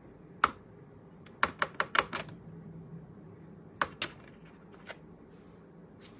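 Sharp clicks and taps of small objects being handled on a tabletop game console: one click, a quick run of about five a second or so later, then two more near four seconds in.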